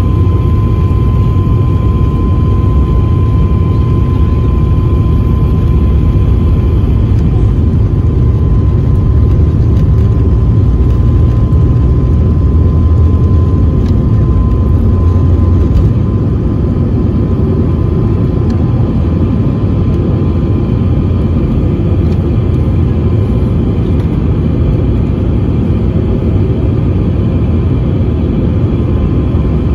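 Cabin noise of a COMAC C919 taking off, its CFM LEAP-1C turbofans at take-off thrust: a loud, steady low rumble with a steady high whine on top. Just past halfway the sound eases slightly as the airliner leaves the runway and climbs, and the whine fades.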